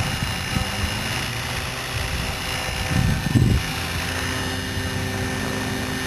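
Electric radio-controlled helicopter (Hurricane 550 class) in flight, its motor and rotor making a steady whine of several even tones. Short bursts of low rumble come and go, the strongest about three seconds in.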